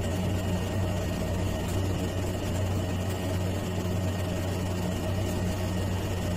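A steady low hum with no change and nothing else standing out.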